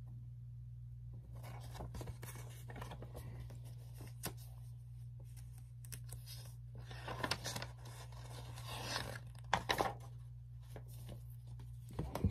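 Paperback storybook pages being handled and turned: scattered rustles, scrapes and small clicks, busier in the second half, over a steady low hum.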